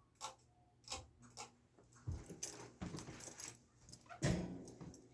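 Sears/Lasko ceiling fan's Sanyo spinner motor humming faintly as it starts up in reverse, with scattered clicks and rattles and a few louder scuffing noises about two seconds in and again past four seconds.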